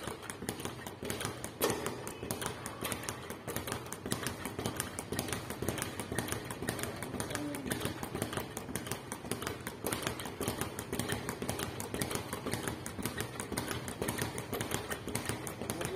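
Leather speed bag being punched continuously, knocking against its rebound board in a fast, steady rattle of knocks.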